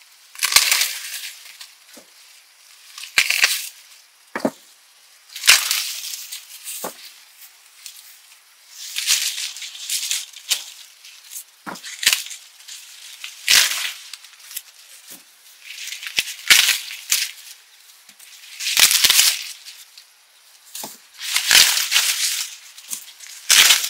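Maize leaves and husks rustling and crackling in repeated bursts, every two to three seconds, as ears of corn are snapped off the stalks by hand; several bursts start with a sharp snap.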